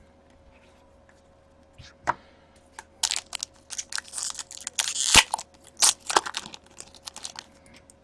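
A trading-card pack's wrapper being torn open and crinkled: one sharp click, then a few seconds of irregular tearing and crackling, loudest about five seconds in.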